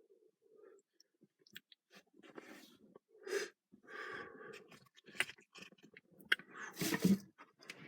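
A person's breathing, drawn in and blown out in irregular breaths, with small clicks and handling noises, and the loudest breath about seven seconds in.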